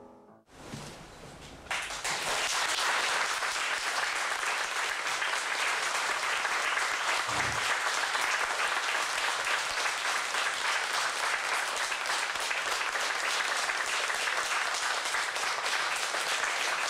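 Audience applauding, breaking out about two seconds in just as the last notes of a piano trio die away, then going on steadily.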